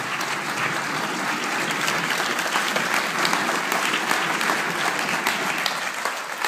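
A large theatre audience applauding: dense, steady clapping from many hands.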